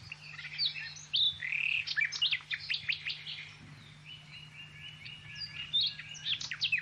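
Songbirds chirping and calling: many short, quick chirps, with a rapid trill of repeated notes in the middle, over a faint steady low hum.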